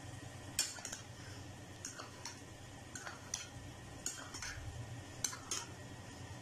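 Metal spoon stirring cooked mutton heart pieces and raw egg in a ceramic bowl, clinking faintly against the bowl at uneven intervals, about every half second.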